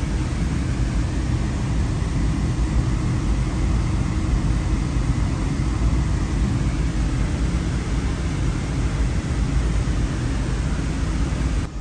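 Steady loud background rumble and hiss of running machinery, with a faint steady tone over it. It cuts off abruptly near the end.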